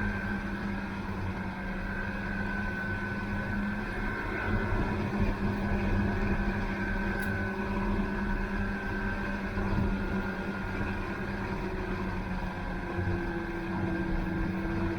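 Snowmobile engine running at a steady speed under way, a continuous drone with a steady whine over it.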